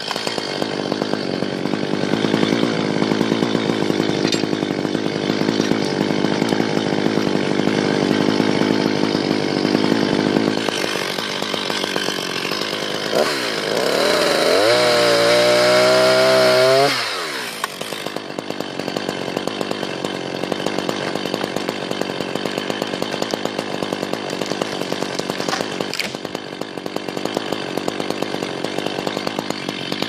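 Two-stroke chainsaw cutting through a conifer trunk under load, making the felling cut behind the notch. About halfway through, the engine revs up high with its pitch rising and then falling away, and for the last dozen seconds it runs lower with a fast, even pulsing.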